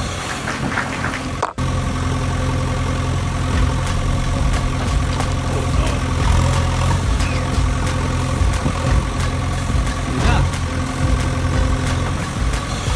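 Vehicle engine idling steadily, a low even hum, with a brief dropout about a second and a half in.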